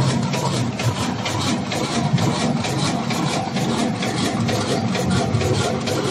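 Automatic paper carton erecting machine running at production speed: a fast, even mechanical clatter of its forming and feeding strokes over a steady low hum.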